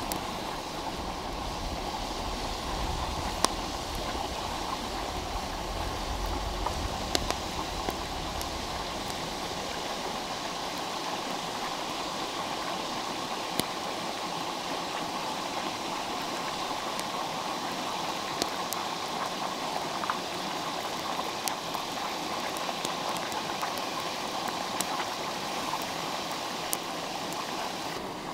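A stream flowing steadily with a constant rushing sound, and sharp clicks scattered through it. A low rumble underneath fades out about ten seconds in.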